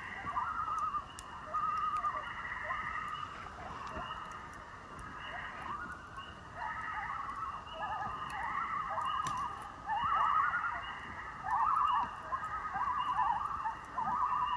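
Common loons calling across the lake: repeated wavering tremolo calls, several overlapping and answering one another. A steady high-pitched background drone runs underneath.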